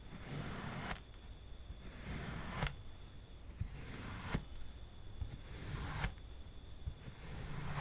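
A knife slicing again and again through blocks of kinetic sand: about five gritty crunching cuts, each lasting about a second and most ending in a sharp click.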